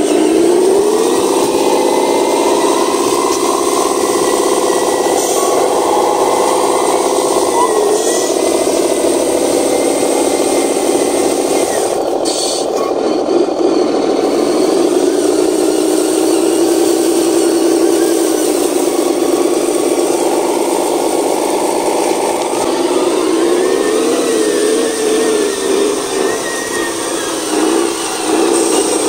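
Electric drive motor and gearbox of a handmade RC model truck whining as it drives, the pitch rising and falling repeatedly with its speed.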